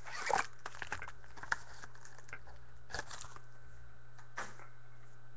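Plastic wrapping of card boxes and packs crinkling and tearing in short scattered rustles and clicks as they are opened, over a faint steady low hum.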